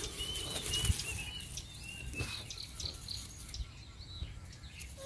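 Small birds chirping in a quick run of short high notes, mostly in the first half. Under them are the rustling and light knocks of two puppies scuffling in dry grass.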